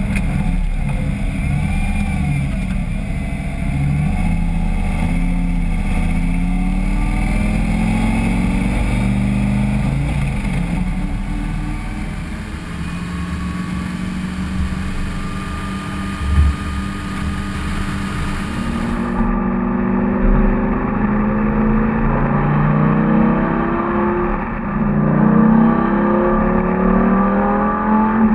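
Lamborghini Gallardo LP 570-4 Superleggera's V10 engine running while driving, its pitch rising and falling with throttle and gear changes. There is a single thump about halfway through. After a cut, the second half has repeated climbs in revs.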